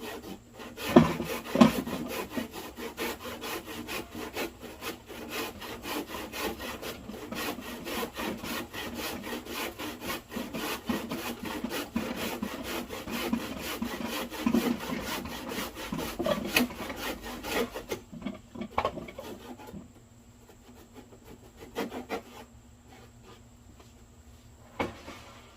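Handsaw cutting through lumber in steady rasping strokes, which stop about eighteen seconds in. A few short knocks of wood follow.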